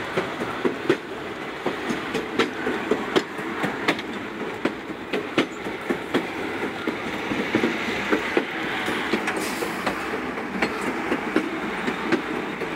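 Passenger train rolling along the track: a steady rail rumble with frequent, irregular clicks of the wheels over the rails.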